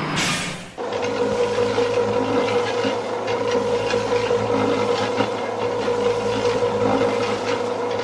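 A short hiss that cuts off within the first second, then a concrete mixer truck running steadily with a constant whine and a rasping, ticking rattle as its drum turns and concrete pours down the chute.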